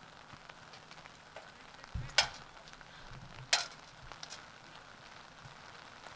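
Light rain falling with a steady hiss, broken by two sharp taps about a second and a half apart near the middle.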